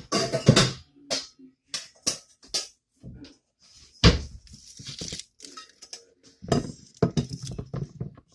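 Cookware clattering and knocking as pots and a stainless steel bowl are pulled from a low cabinet and handled, with a sharp clank about four seconds in.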